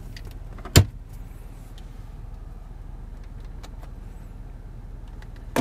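A car's glove box lid shut with one solid thump about a second in, then a few faint clicks from the centre console and a sharp click near the end as the console's ashtray lid is worked, over a steady low hum.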